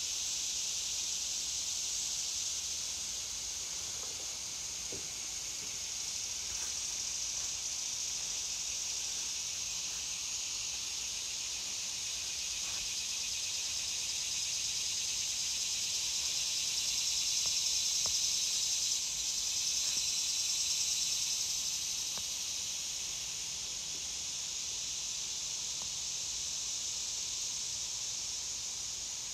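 Chorus of insects in the trees: a steady high-pitched buzzing that runs on without a break and swells a little in the middle.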